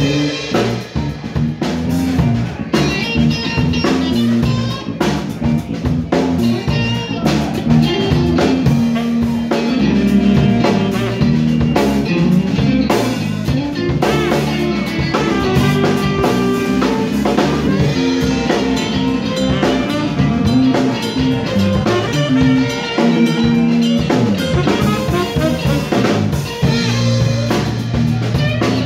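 Live funk band playing a groove: tenor saxophone over electric bass, electric guitar and drum kit.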